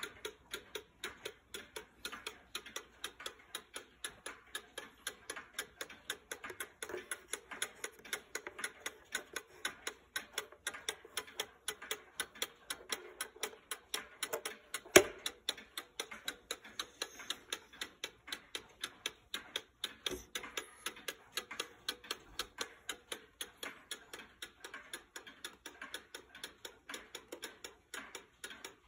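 Antique railroad-style cuckoo clock ticking rapidly and evenly while running, with one sharp knock about halfway through.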